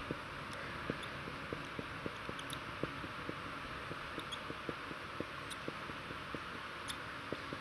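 Marker pen writing on a whiteboard: soft, irregular taps and scratches, a few a second, as the strokes of the characters go down, over a steady hiss.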